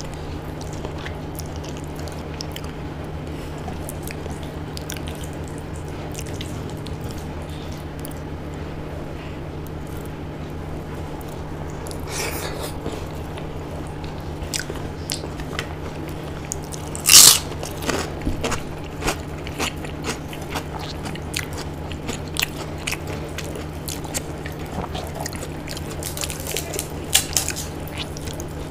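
Close-miked eating: chewing, mouth smacks and scattered crunchy bites, with fingers squishing soft khichdi, the loudest single crunch a little past halfway. A steady low hum runs underneath.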